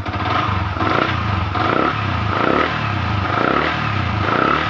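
Yamaha Vixion's single-cylinder, liquid-cooled four-stroke engine being revved in a series of about five quick throttle blips, each rising and falling, then dropping back toward idle near the end. The engine has just been rebuilt after overheating and runs smoothly.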